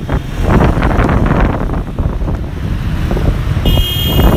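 Wind buffeting the microphone of a moving motorbike, over the drone of motorbike and car traffic. A high, steady whine comes in near the end.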